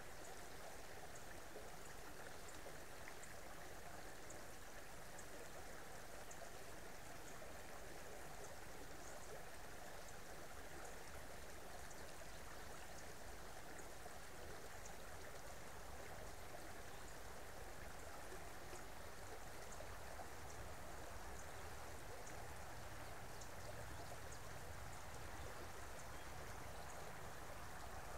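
Creek water flowing steadily, an even rush of running water with faint scattered high ticks.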